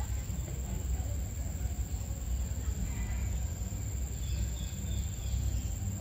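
Outdoor ambience: a steady low rumble with faint, short high-pitched chirps about four seconds in.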